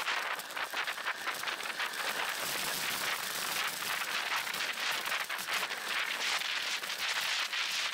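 Steady rushing noise with dense crackling from a camera microphone on a moving bicycle: wind and road vibration while riding along a paved path.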